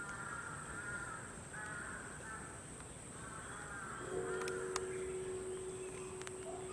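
A crow cawing, a run of several harsh caws over the first few seconds. A steady high-pitched whine sounds throughout, and a steady low hum comes in about four seconds in.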